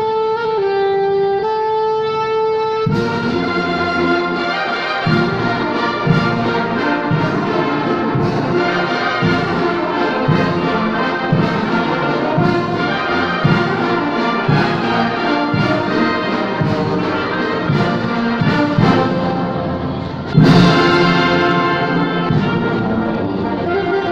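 Alto saxophone playing a held solo melody, then about three seconds in a full brass band comes in behind it with a steady pulse of about one low accent a second. About twenty seconds in the band hits a loud accented chord with a crash.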